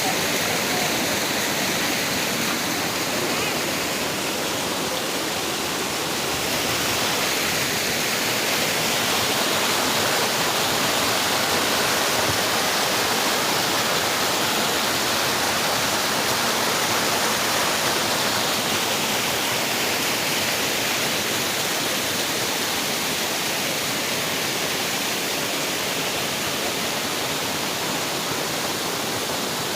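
Waterfall rushing: a steady, loud hiss of falling water, swelling slightly in the middle.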